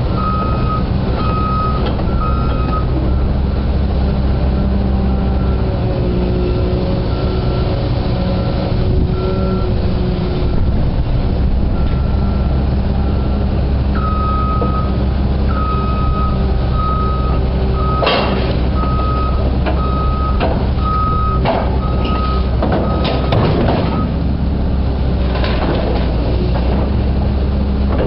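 Caterpillar 320 excavator's diesel engine running steadily while its travel alarm beeps about once a second as it tracks. The beeping stops shortly after the start and comes back about halfway through, with several sharp metallic clanks in the second half.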